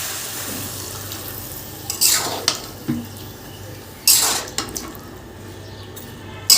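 Water poured into a karahi of cooking bottle gourd in two short splashing pours, with a few clinks of metal against the pan. A sizzling hiss fades out at the start.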